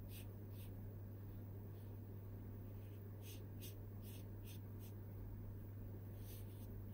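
Watercolour brush stroking over wet paint on paper, an irregular run of faint short swishes as the paint layer is smoothed out, over a steady low hum.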